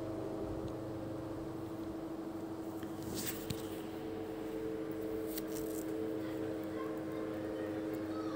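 Water running from a kitchen tap's spray head into a stainless steel sink, a steady rush with a steady hum underneath and a few faint clicks.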